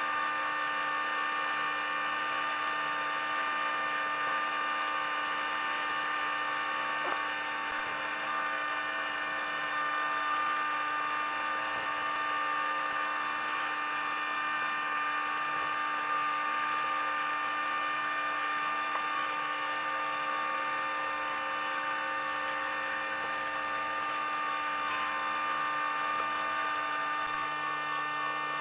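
Outrigger boat's engine running at a constant speed while underway, a steady, unchanging hum with many overtones.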